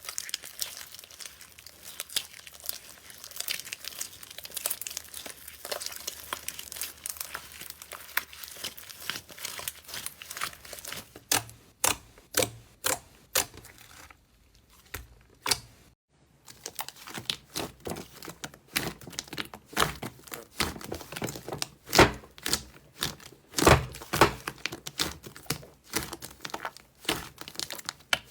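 Hands squeezing, stretching and poking slime: a dense run of sticky crackles and popping clicks, with a brief pause about halfway through, after which the pops come sharper and louder.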